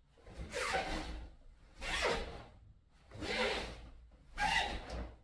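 A karateka performing a kata makes four swishing bursts, one with each technique, about every second and a half.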